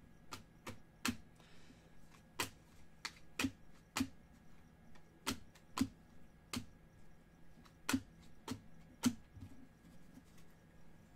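Trading cards being laid one by one onto stacks on a table: a dozen or so sharp, irregular clicks and taps, one or two a second.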